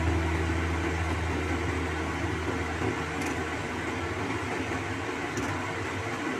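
A pot of soup boiling hard on the stove: a steady bubbling hiss with no clear rhythm. A low hum fades out in the first second or so.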